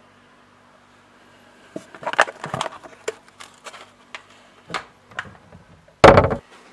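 Handling noise: crackling rustles with sharp clicks and scrapes, then a single loud heavy thump about six seconds in, the loudest sound.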